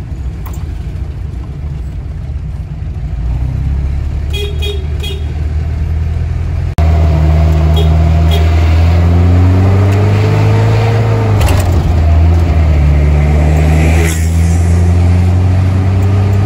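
Mitsubishi Colt L300 minibus running at speed, heard from inside the cab, with engine and road noise. A few quick horn toots come about four to five seconds in. Then the sound abruptly gets louder and the engine revs up, its pitch rising twice as the minibus accelerates.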